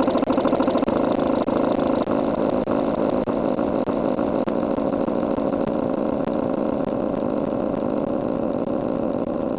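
Heavily distorted, garbled audio that has become a dense, steady buzzing drone. It is the kind of breakdown that comes from being re-encoded many times over, and the original sound can no longer be made out.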